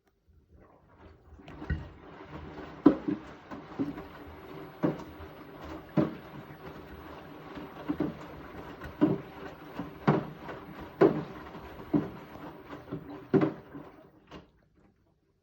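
Beko WTK74011W front-loading washing machine turning its drum during a bedding wash: a steady motor hum with a thud or slosh about once a second as the load tumbles, stopping shortly before the end.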